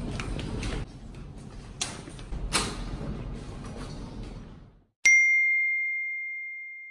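A single bright ding about five seconds in: one clear bell-like tone that rings out and slowly fades, used as a title-card sound effect. Before it, a few soft knocks over room noise, then a brief silence.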